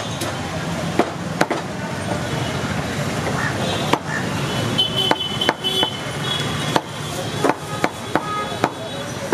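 A large butcher's knife chopping boneless chicken breast on a wooden log chopping block: sharp knocks of the blade hitting the wood, unevenly spaced, roughly one or two a second, over a steady background noise.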